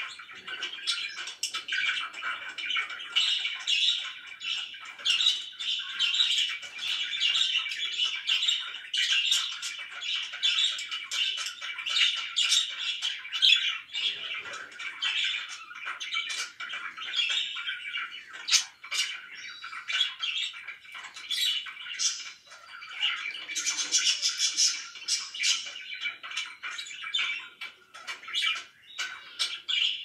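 Several pet budgerigars chattering without pause, a dense mix of chirps and sharp squawks.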